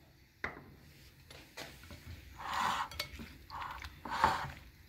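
Red silicone spatula stirring raw prawns in a wet egg marinade in a ceramic bowl: a few short, wet swishes, with light knocks against the bowl.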